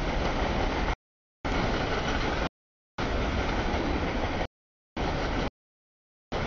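CSX freight train's cars rolling past as an even rushing rumble, chopped into five short stretches of about half a second to a second and a half, each cut off by complete silence.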